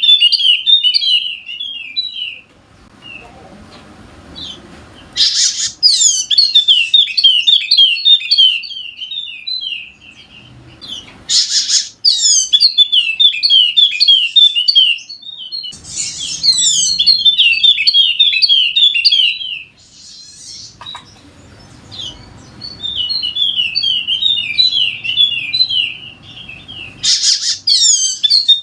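Wallacean white-eye (yellow-spectacled white-eye) singing its full song: long runs of rapid, high, downward-slurred chirps, each run opening with a short buzzy note and lasting several seconds, with brief pauses between runs.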